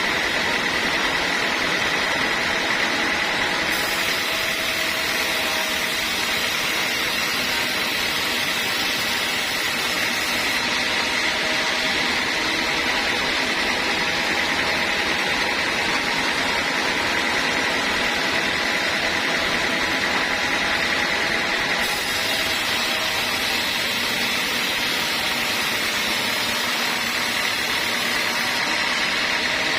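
Sawmill saw running steadily, a continuous mechanical noise with a steady whine.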